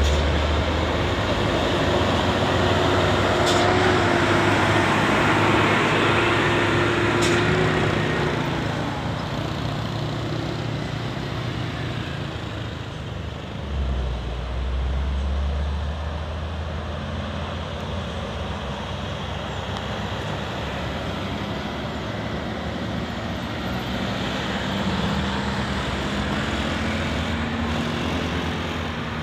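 A truck's diesel engine working up a steep bend, loudest over the first several seconds. Then steady passing road traffic, with a new low engine rumble coming in about halfway through.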